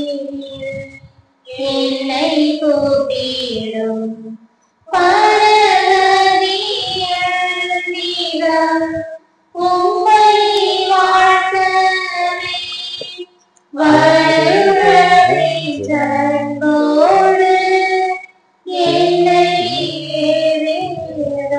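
High voices, women or children, sing a Tamil communion hymn at Mass in phrases of about four seconds, each followed by a brief breath pause.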